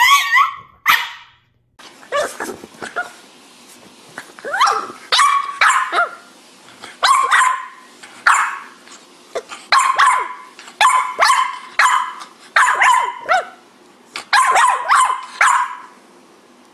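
Black French bulldog puppy barking and yipping in a long series of short calls, about one or two a second, that bend up and down in pitch.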